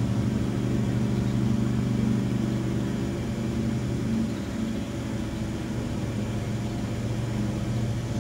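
Steady low drone of an engine running, one unchanging pitched hum that eases slightly about halfway through.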